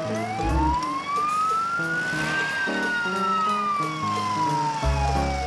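Police car siren in one slow wail, rising in pitch for about two and a half seconds and then falling, over background music with a bass line.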